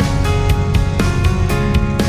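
Background music with a steady pulse of notes, about four a second.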